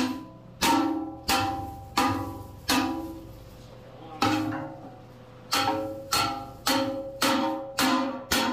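Hammer blows on the steel of a backhoe bucket, about a dozen hits roughly 0.6 s apart with a pause of a second or so in the middle, each strike leaving the metal ringing briefly. The piece is being busted out after a V has been cut around its welds.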